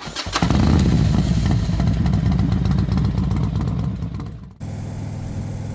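Motorcycle engine revving hard for about four seconds, then cutting off abruptly to a steadier, quieter engine drone.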